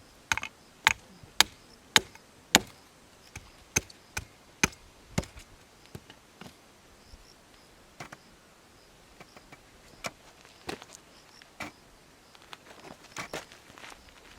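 A run of sharp knocks, about two a second and loud for the first few seconds, then fainter and more scattered, with a short cluster near the end.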